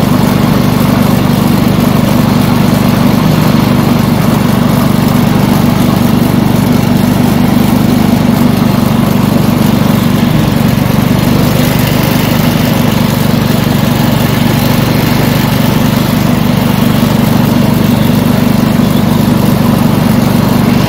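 Garden tractor's engine running loud and steady while the tractor drives across the lawn, an even drone with no change in speed.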